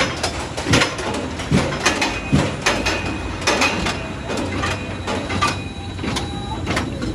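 Roller coaster train rolling slowly along steel track, clattering, with a sharp knock about once every 0.8 s in the first few seconds and lighter rattling clicks after.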